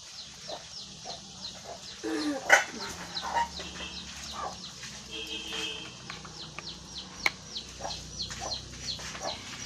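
Chickens clucking, with a run of short high chirps repeating several times a second and a few louder calls.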